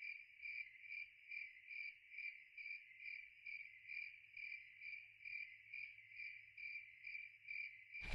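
Cricket chirping: a steady high trill that pulses evenly about twice a second.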